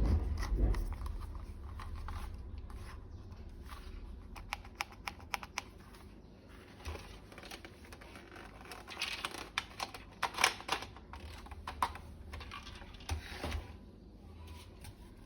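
Irregular small clicks and taps of toy-gun plastic parts being handled, coming thickest about two-thirds of the way through.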